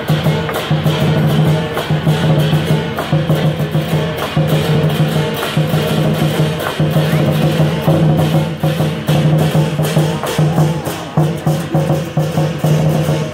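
Chinese lion dance percussion: a big drum beaten in fast, continuous strokes with cymbals clashing over it.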